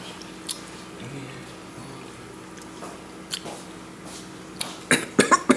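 A person taking a sip of a drink and tasting it: quiet mouth and swallowing sounds with a few soft clicks, then a quick run of lip smacks and mouth clicks about five seconds in.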